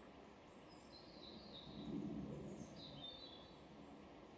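Quiet pond-side ambience with two short runs of high, thin bird chirps, the first about half a second in and the second between two and three seconds in. A faint low rumble swells around the middle.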